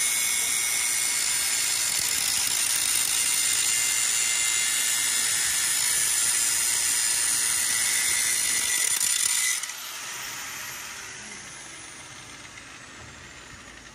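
Electric power tool running steadily on a metal workpiece, with a loud hissing, high-pitched grind; it cuts off about nine and a half seconds in and winds down with a falling whine.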